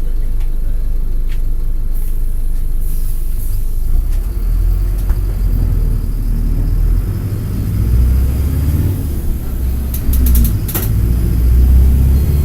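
Mercedes-Benz OF-1722M bus's OM-924 LA four-cylinder turbodiesel engine running under way, heard from on board. The low rumble grows louder about four seconds in and then rises and falls with the load, with a few sharp rattles near the end.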